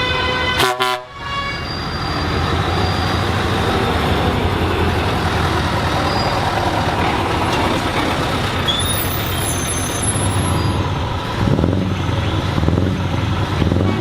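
Truck horn sounding in the first second, then a truck engine running under a dense, steady rush of noise.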